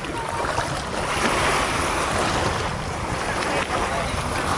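Wind buffeting the microphone, a gusty low rumble, over shallow lake water sloshing around people wading with a fishing net.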